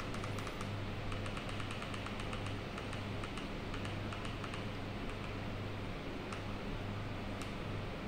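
Quick runs of light plastic clicks from a handheld dimmer remote's buttons being pressed, thinning out to a few single clicks after about three seconds, over a steady low mains hum.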